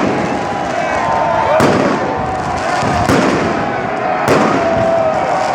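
Fireworks going off in a celebrating street: three sharp bangs about a second and a half apart, over a constant din of held, wavering tones and shouting voices.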